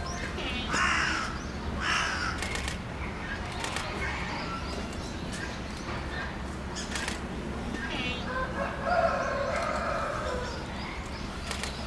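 Giant panda calling: two short harsh calls about a second apart near the start, then a longer, lower call near the end.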